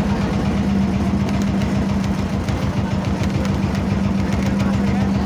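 A fishing boat's engine running steadily, a constant low hum that does not change in pitch or loudness.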